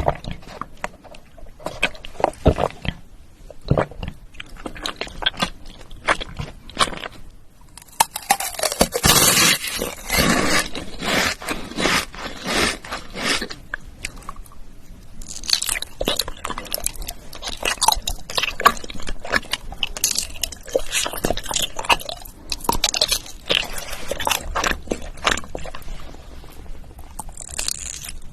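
Close-miked eating: repeated crunchy bites and chewing, with clusters of sharp crackles and a few quieter pauses between mouthfuls.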